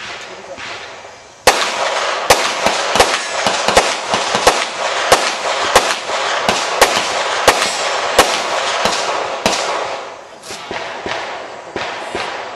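Rapid pistol fire at a practical shooting match: a string of sharp shots starting about a second and a half in, loud shots roughly every second or faster with fainter ones between, thinning out after about ten seconds.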